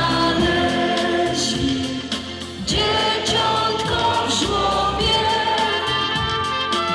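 Large mixed choir of adults and children singing a Polish Christmas carol together over instrumental backing, with a short lull between phrases about two seconds in.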